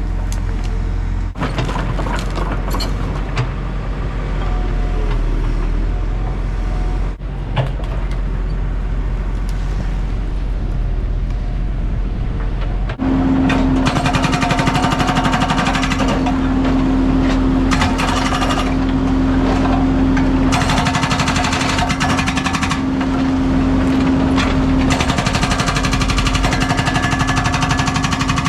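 Heavy diesel construction machinery running with a steady low rumble. About halfway through it gets louder, with a steady hum and fast, dense rattling.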